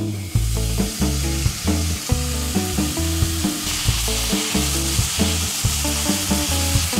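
Marinated pork belly sizzling as it fries in a dry pan with no oil, in the fat rendering out of the meat, while chopsticks turn it; the sizzle gets louder a little past halfway. Background music with a steady bass line plays throughout.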